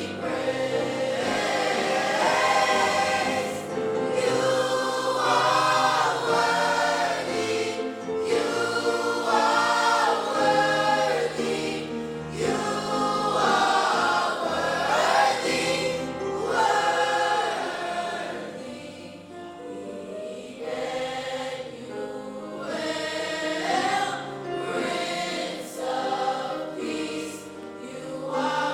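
Gospel choir singing with accompaniment, softening for a few seconds about two-thirds of the way through before swelling again.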